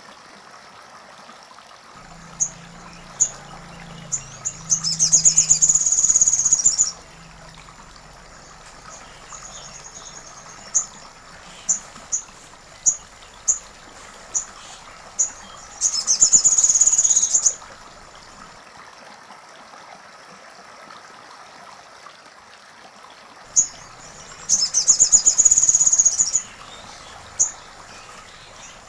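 A sogon bird singing, with sharp single high chirps and three loud, rapid, high trilling bursts of about two seconds each, woodpecker-like material the bird has learned. A steady faint wash of running water lies underneath.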